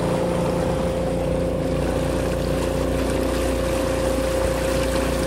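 Electric motor of a DIY electric jet-ski conversion whining at one steady pitch under way, over the rush and splash of water along the hull.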